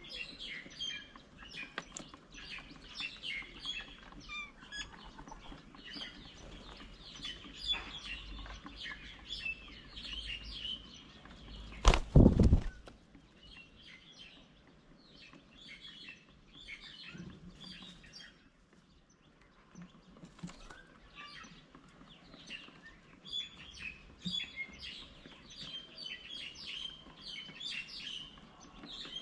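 Many small birds chirping and twittering in quick short calls, thinning out for a moment past the middle. About twelve seconds in, a brief loud bump or flutter rises above them.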